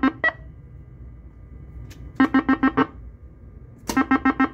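Pinball sound board's electronic three-tone scoring beeps from the Pascal Flippp P1-X4 in a Gottlieb Countdown machine. Quick runs of about six identical beeps at roughly ten a second, heard as a short tail at the start, again about 2 s in, and again near the end.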